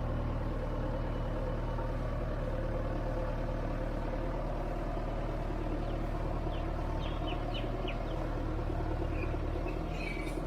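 JCB earthmover's diesel engine running steadily with an even low drone, with a few faint short high chirps or clinks in the second half.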